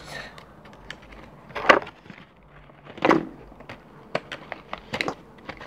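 Plastic fidget spinners being handled: scattered light clicks and taps, with two louder noisy bursts in the first half.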